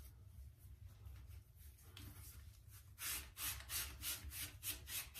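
Hands rubbing and pressing a sheet of pebble tile down into the mortar bed, the stones scraping under the palms: quick scratchy rubbing strokes, about four a second, starting about three seconds in.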